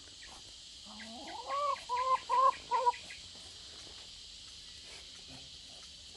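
Chicken calling: a rising call followed by four or five short, quick clucks over about two seconds, part of a flock being unusually noisy and vocal.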